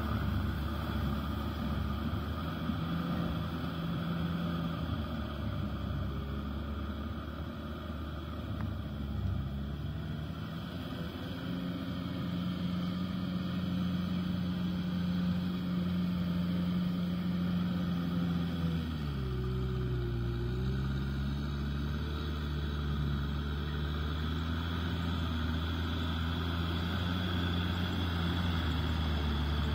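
Kubota M6040SU tractor's diesel engine running steadily under load while its rotavator tills wet mud. The engine note drops about two-thirds of the way through, then settles a little lower.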